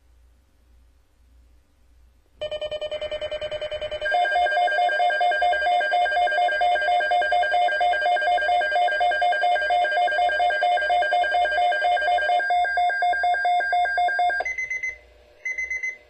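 Weather radio sounding its alert alarm for a severe thunderstorm watch: a loud, rapidly pulsing trill of steady tones. It begins about two and a half seconds in with a buzzier first second or so, runs about twelve seconds, and gives way to two short high beeps near the end.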